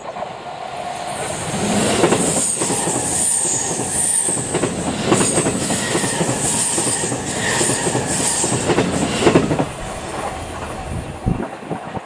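A JR East E257 series electric train passing close by on a curve: rolling noise with wheels clacking over rail joints and a high squeal from the wheels. It builds over the first two seconds and fades about ten seconds in as the last car goes by, with a brief low thump near the end.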